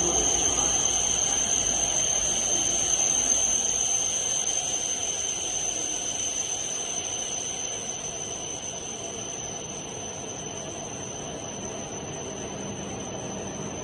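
Shinkansen train pulling in alongside the platform and slowing on arrival, its running rumble fading away, with a steady high-pitched whine throughout.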